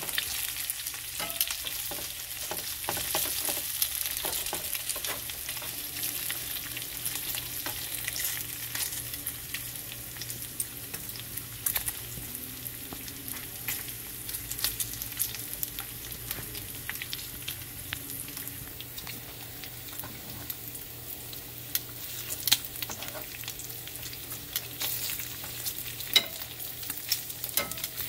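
Bacon strips sizzling in a nonstick frying pan at medium heat, about halfway to crispy: a steady high hiss dotted with crackles and pops of spitting fat.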